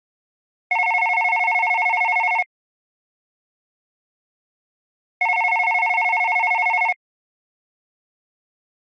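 Modern landline telephone ringing with an electronic ringtone: two rings of just under two seconds each, about four and a half seconds apart, each a fast-pulsing electronic tone.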